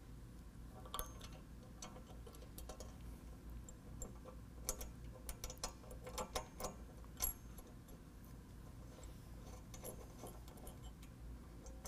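Scattered light metal clicks and ticks as a bolt, flat washers and a Nylock nut are fitted and threaded by hand on a tube door's hinge bracket, most of them in the middle.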